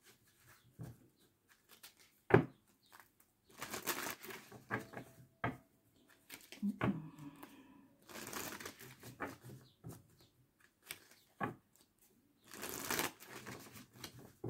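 A deck of oracle cards shuffled by hand: three bursts of rustling card-on-card shuffling, with separate sharp taps and clicks of the cards in between.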